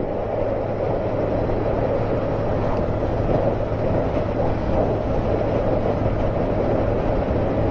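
Honda Fireblade inline-four motorcycle engine cruising at a steady speed, its note holding level under steady wind and road noise.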